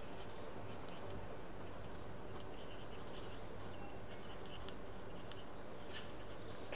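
Pen writing on paper on a clipboard: faint, irregular scratching strokes, over a low steady background hum.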